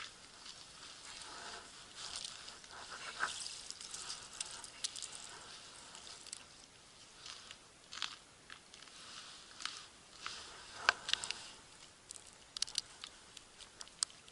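Scattered crunching and crackling of thin ice and slush at a fishing hole as a small gill net is hauled out through it by hand, with a few sharper cracks near the end.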